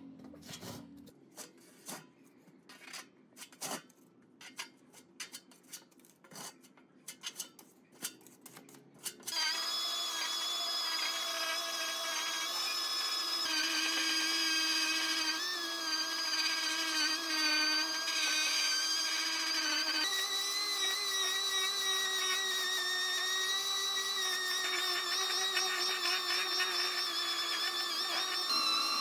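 A plastic spreader scrapes and taps body filler onto a steel fan housing in a run of short scrapes. About nine seconds in, a random orbital sander starts and runs with a steady whine as it sands the dried filler.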